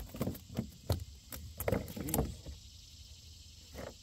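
A run of irregular knocks and creaks against a plastic fishing kayak as fishing gear is handled, with a short squeak about two seconds in and one last knock near the end.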